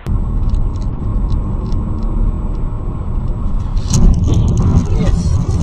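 Car on the move: a steady, loud low rumble of engine and road noise, growing louder and harsher about four seconds in.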